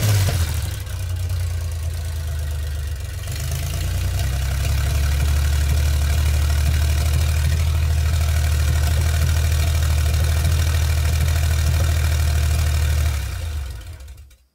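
Buick 231 odd-fire V6 running on its first startup through new headers, with no oil reaching the rocker arms. It runs quieter for a few seconds near the start, then holds steady, and near the end it is shut off and dies away.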